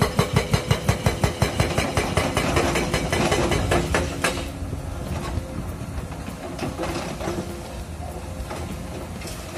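Excavator-mounted hydraulic rock breaker hammering rapidly at about six blows a second, stopping about four seconds in; after that the excavator's engine keeps running with a few scattered knocks.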